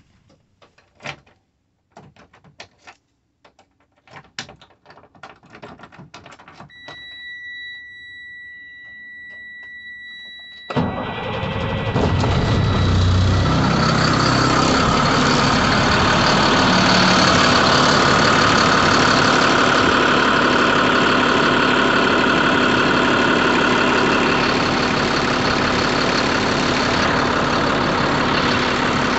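Knocks and clatter of climbing into a truck cab, then a steady electronic warning tone for about four seconds. About eleven seconds in, the Caterpillar C7 inline-six diesel cranks briefly, catches and settles into a steady idle.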